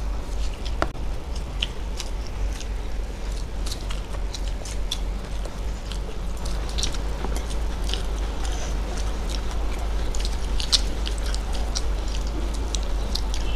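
People chewing food with mouths closed close to a microphone: many small, irregular wet clicks and smacks, over a low steady hum.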